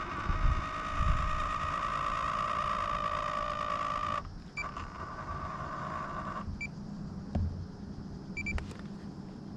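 Small electric motor running with a steady whine, dropping in level about four seconds in and stopping about two seconds later, followed by a few short electronic beeps.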